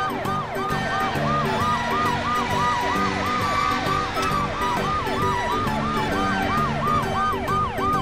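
Police car siren in a fast yelp, its pitch rising and falling about three to four times a second without a break, over background music.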